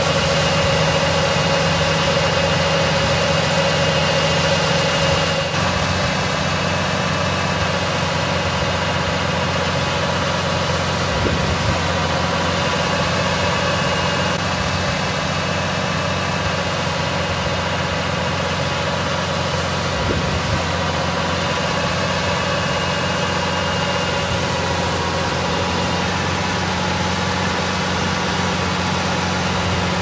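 Case IH Magnum tractor's diesel engine running steadily under load while it drives the grain cart's unloading auger, as corn pours into a semi trailer. The sound drops slightly about five seconds in.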